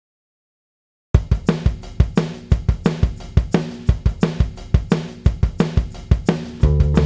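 Background music: after about a second of silence, a drum kit starts a steady rock beat of kick, snare and hi-hat, and bass and guitar come in near the end.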